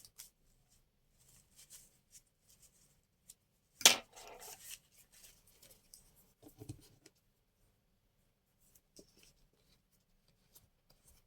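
Scattered faint handling of paper and craft materials on a work surface, with one sharp click about four seconds in and a soft thump a couple of seconds later.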